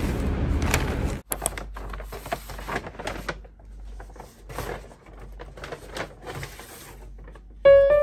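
A steady rumble of background noise that cuts off about a second in, followed by a run of irregular rustles and light knocks as shopping items are unpacked and handled on a table.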